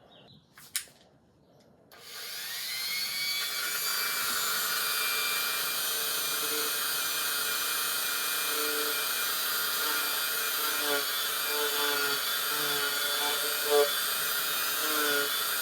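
Dremel rotary tool with a steel wire brush, spinning up with a rising whine about two seconds in and then running steadily. Its pitch wavers as the bristles bear on the metal, scrubbing at grime that won't come off.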